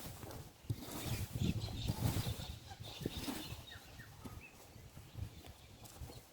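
Campfire crackling, with scattered sharp pops, and wind buffeting the microphone, heaviest from about one to two and a half seconds in.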